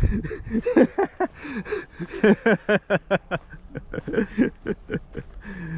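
A man's voice in short, rapid chuckles and breathy sounds with no clear words, quickest about two to three seconds in.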